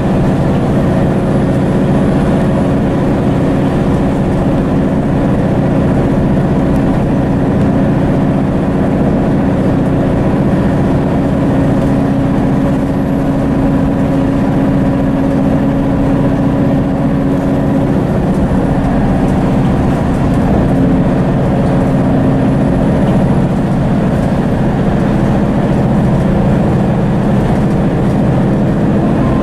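Mercedes-Benz Citaro city bus with a Daimler OM906hLA six-cylinder diesel and ZF six-speed automatic, heard from inside the cabin while driving: a steady engine and drivetrain drone mixed with road noise. Its engine note changes about two-thirds of the way through.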